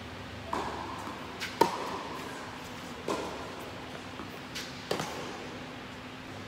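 Tennis rally: four sharp racket-on-ball hits a second or two apart, the loudest about a second and a half in, with a couple of fainter ball bounces between them. Each hit rings briefly in the indoor hall.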